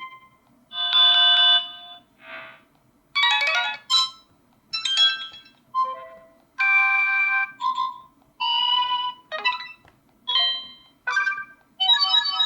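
A run of the Cubot KingKong Mini 2 smartphone's built-in notification tones played one after another: about a dozen different short chimes and jingles, each under a second long, with brief gaps between them.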